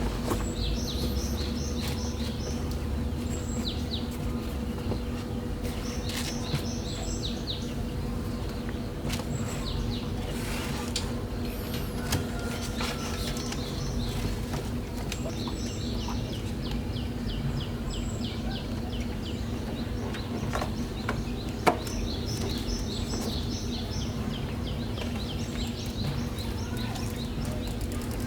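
Birds chirping in short rapid trills that come back every few seconds, over a steady low hum, with a few scattered clicks and knocks.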